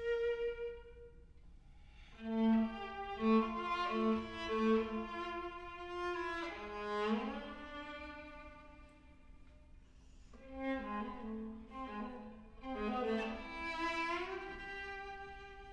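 Viola playing: held bowed notes, a run of four short repeated notes about two seconds in, and upward slides into notes about seven and fourteen seconds in.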